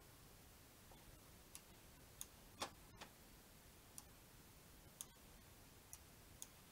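Computer mouse clicking, about eight faint, sharp clicks at uneven intervals over near silence, the loudest a little before the middle.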